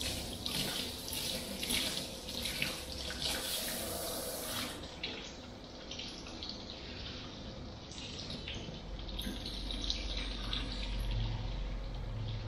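Water from a handheld shower sprayer running and splashing over hair into a shampoo basin, rinsing the hair. The splashing is loudest for the first few seconds and then softer. A low hum comes in about nine seconds in.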